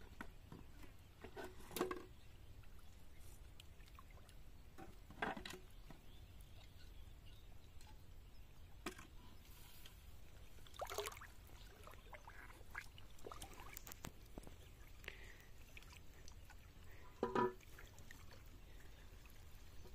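Plastic bottle traps being emptied into a basin of water: a few short, separate splashes and pours as fish and water are shaken out, over a low steady rumble.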